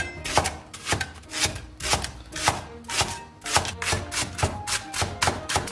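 Cleaver slicing a Chinese green onion stalk on the bias on a thick wooden log-slice chopping board: a quick, even run of knife strikes against the wood, about four or five a second.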